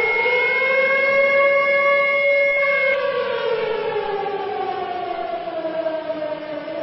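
Civil defence air-raid siren wailing, its pitch rising for about two and a half seconds and then falling slowly: the rising-and-falling attack warning signal. A steady high-pitched tone sounds over it and cuts off about three seconds in.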